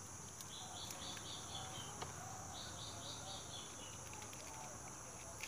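Steady, faint high-pitched insect drone outdoors, with two short runs of rapid chirps, and a few faint clicks.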